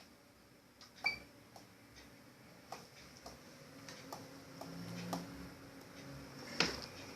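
Light, irregular taps and clicks of small objects being handled, about a dozen in all. One louder click with a short ring comes about a second in, and a sharper knock near the end.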